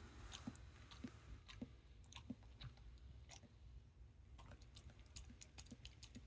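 Elderly shiba inu lapping water from a bowl: faint, irregular wet clicks, roughly two a second.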